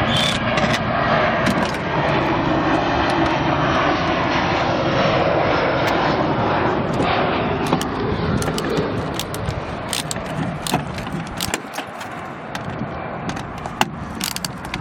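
An aircraft's engine rumbling overhead, its pitch slowly bending as it passes, then fading over the second half. Near the end come scattered sharp metal clicks and jingles of tools or keys.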